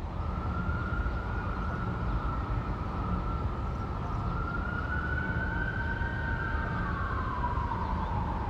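A siren wailing slowly, its pitch drifting gently upward and then falling away over the last couple of seconds, over a steady low city rumble.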